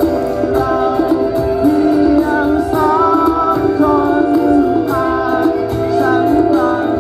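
Live band playing amplified music through a PA system, with a melody over a steady drum beat, heard from within the crowd.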